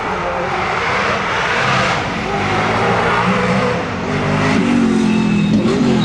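Chevrolet V8 of a Firenza Can Am rally car with a side-exit exhaust, running loud on the approach and getting louder as it nears. Its pitch dips and climbs again over the last two seconds as it is driven hard along the stage.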